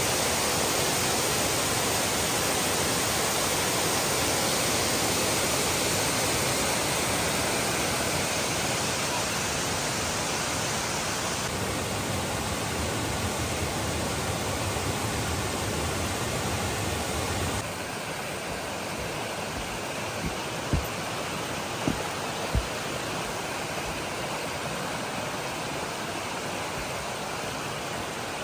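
Waterfall and cascading creek: a steady, even rush of falling water that drops a little in level about two-thirds of the way through. A few short thumps stand out soon after.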